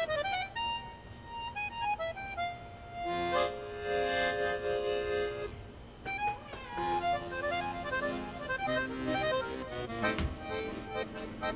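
Background music: a solo accordion playing a light, wistful melody with held chords.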